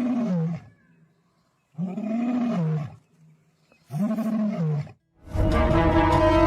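An animal's voice: three drawn-out calls that rise and fall in pitch, each about a second long, then a louder, rougher, longer call near the end.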